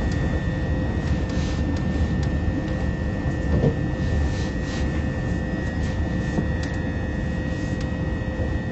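Inside a moving Class 357 Electrostar electric multiple unit: steady running rumble with a constant high whine and a lower hum from the traction equipment, and faint scattered ticks.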